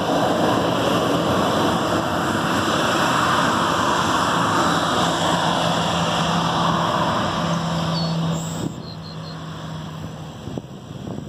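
Boeing 737-800's CFM56-7B turbofan jet engines running at taxi power as the airliner taxis away: a steady rush with a low hum, falling off sharply about eight and a half seconds in.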